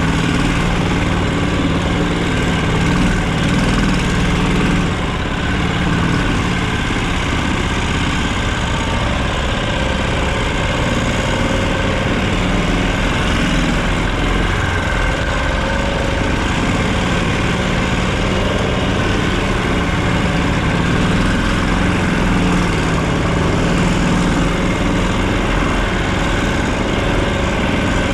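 Vehicle engine running steadily under way, with a constant hum and slight shifts in pitch.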